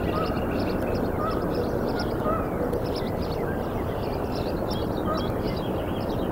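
Outdoor ambience from a microphone at a bald eagle nest: a steady rushing background noise, with many quick high-pitched bird chirps in clusters and a few short calls now and then.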